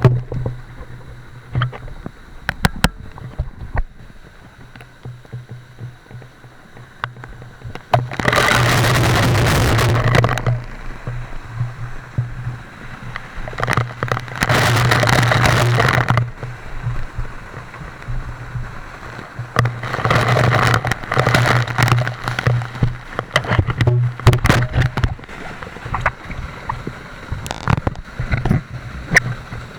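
Waterfall water rushing and splashing over a small action camera's microphone in three loud stretches, with scattered clicks and knocks of gear between.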